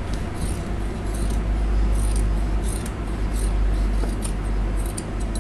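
Fabric scissors cutting through denim, a run of short crunching snips about two a second, over a steady low hum.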